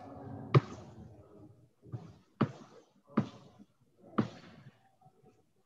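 Five sharp knocks at irregular intervals of about a second, the first the loudest, heard over a video-call connection with a faint low background murmur.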